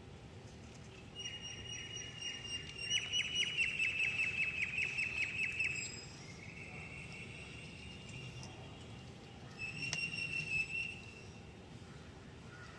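A bird calling: a high, thin held note that breaks into a fast trill, then a fainter held note and a short one near the end.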